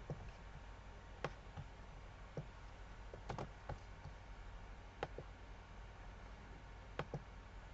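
Computer mouse clicking: a handful of faint, irregularly spaced clicks over a low room hum.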